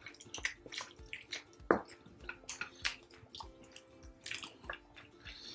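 Wet chewing and mouth clicks of people eating saucy braised pork by hand, a quick irregular scatter of short smacks and squelches. Faint background music runs underneath.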